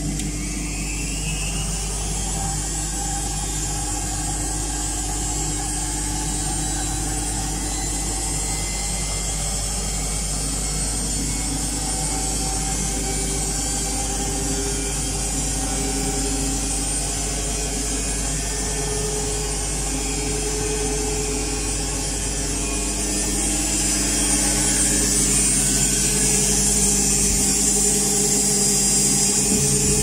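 Arctic L800TA front-loading washing machine running a wash: its motor whirs steadily as the drum turns. A brief rising whine comes at the start, and the sound gets louder about three-quarters of the way through.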